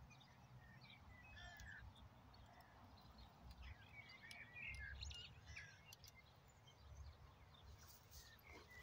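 Near silence outdoors: faint birds chirping now and then, mostly in the first half, over a low wind rumble on the microphone.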